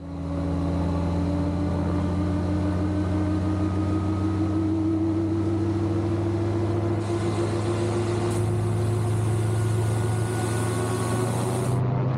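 Rotax 915iS four-cylinder turbocharged engine of an AutoGyro MTOsport gyroplane running steadily and spinning its pusher propeller. A high hiss joins for a few seconds past the middle.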